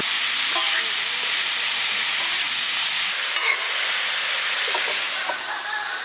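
Boneless parrot fish pieces with onion and tomato sizzling on a hot flat griddle while being stirred and turned with a spatula: a steady frying hiss with faint scrapes of the spatula. The sizzle eases slightly near the end.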